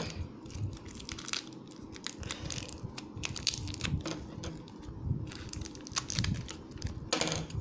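A small plastic wrapper crinkling in the hands and being snipped open with scissors: an irregular run of small crackles and clicks.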